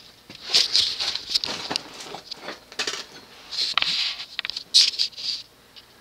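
Irregular rustling and light scraping handling noise on the microphone, loud and uneven, stopping abruptly about five and a half seconds in.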